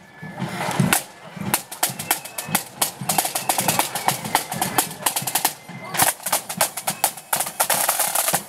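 Marching band snare drums playing a rapid street beat with a bass drum, many sharp strokes in quick succession.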